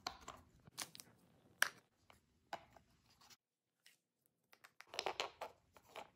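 Small hard-plastic connector brackets handled and set down on wooden furniture panels: scattered clicks and taps, with a quick cluster of clicks and rustling about five seconds in.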